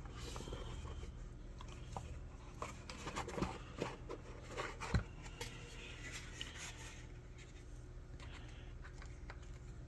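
Packaging being handled while a pen box is opened: light rubbing and scraping with scattered small clicks, and one sharper click or knock about five seconds in.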